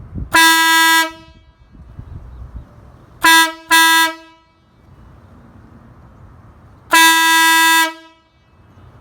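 Cheap compressor-fed air horn (an aftermarket "train horn" kit) sounding loud blasts: one long blast, two short ones close together about three seconds in, and another long one near the end. Each blast holds one steady note and cuts off sharply.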